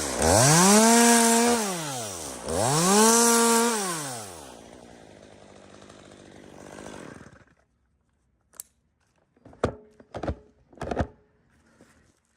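Chainsaw revved up to full speed twice, each time held for about two seconds and then dropped back. It then runs on quietly and stops about halfway through, followed by a few sharp knocks near the end.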